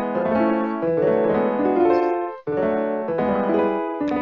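Piano-style keyboard music, several notes sounding together in chords, with a short break about two and a half seconds in.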